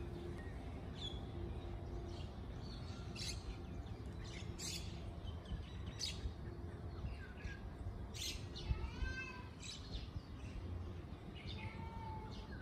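Small birds chirping overhead in short, shrill calls every second or two, with a run of rising chirps about nine seconds in, over a steady low background rumble.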